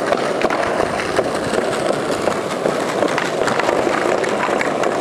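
Skateboard wheels rolling over paving slabs: a steady rumble broken by frequent sharp clicks as the wheels cross the joints.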